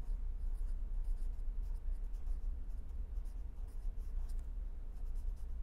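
Pen writing on paper: a string of faint, short scratchy strokes as a word is written out, over a steady low hum.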